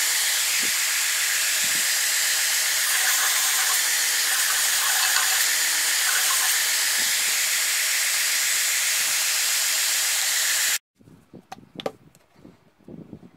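Edge belt sander running, with plywood pressed against the moving abrasive belt: a steady sanding hiss. It cuts off suddenly about eleven seconds in, leaving a few faint handling clicks and knocks.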